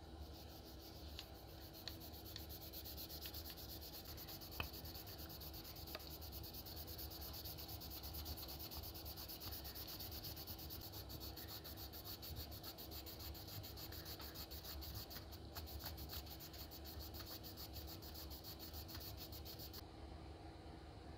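Gloved hand rubbing polishing paste back and forth over a plastic revolver grip panel: a fast, steady, faint scratchy rubbing that stops shortly before the end.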